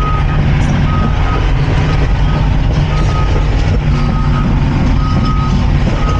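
Cat 349 excavator's diesel engine running under load while it travels, with its travel alarm beeping about once a second over the steady rumble.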